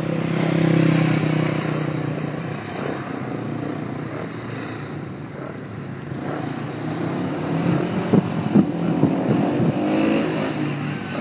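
Speedway motorcycles' single-cylinder engines running on a dirt track; one bike passes close about a second in, loudest then, and the others carry on at a distance. A few sharp knocks come near the end.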